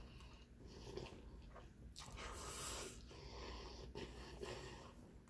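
Spaghetti being slurped into the mouth, with one longer slurp lasting about a second, about two seconds in, among shorter ones.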